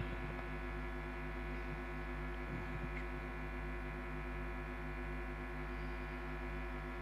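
Steady electrical hum and buzz from a sound system: a stack of unchanging tones with a slight pulsing in the low ones, holding at one level throughout.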